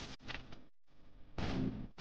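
Rustling handling noise as hands twist a fuzzy chenille stem close to the microphone, in two noisy stretches with a brief near-silent gap in between.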